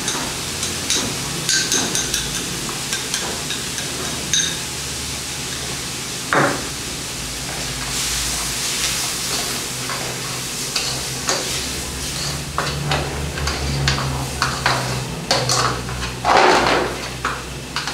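A metal spoon clinking, scraping and knocking irregularly against a metal sauté pan as gorgonzola cream is stirred into sausage and vegetables, over a steady sizzle of frying. The loudest knocks come about six seconds in and near the end.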